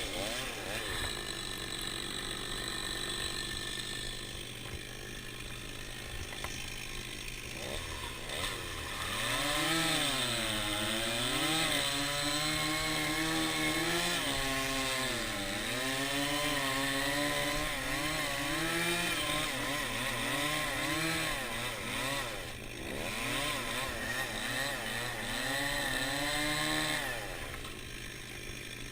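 Chainsaw idling low, then from about nine seconds in running at speed and cutting into the trunk of a date palm, its pitch repeatedly dropping and rising as the chain bogs in the cut and revs back. It falls back to a low idle near the end.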